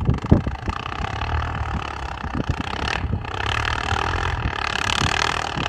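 Quad (ATV) engine running under load as it climbs a steep snowy hill, getting somewhat louder after about four seconds.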